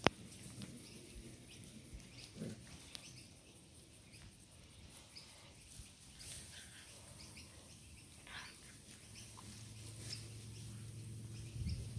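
Seven-week-old Doberman puppies play fighting: faint growls and short squeaky sounds from the puppies, with a longer low growl near the end. A sharp click comes right at the start.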